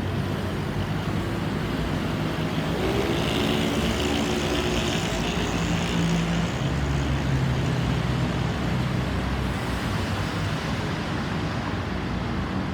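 Roadside traffic noise, with a heavier engine passing by a few seconds in.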